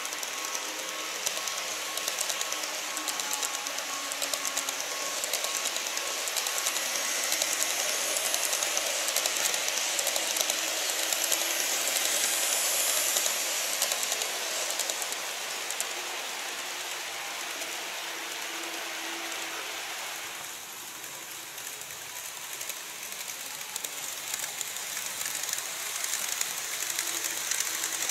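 Model E233-3000 and E257-2000/2500 trains running on model track: a steady whirring hiss with rapid fine clicking of small wheels over the rail joints, loudest as a train passes close near the middle.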